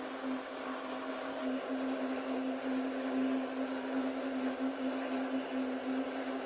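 Steady machine-like hum, a constant low tone under an even hiss, picked up by a doorbell camera's microphone.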